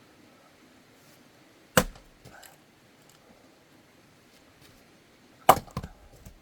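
An axe striking a firewood log twice, about four seconds apart, each sharp blow followed by a few smaller knocks; the log is cut too long to split easily.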